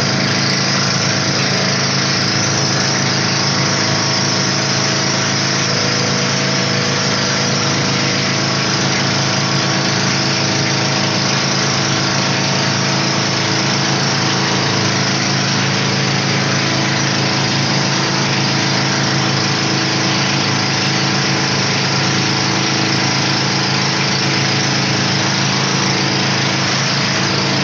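Outrigger boat's (bangka's) motor running at a steady cruising pace, over a constant rush of wind and water.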